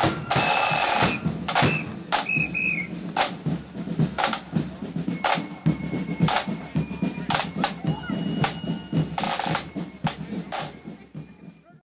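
Marching band side drums (snare drums) and a bass drum playing, with sharp irregular strikes and a few short rolls; the sound fades out near the end.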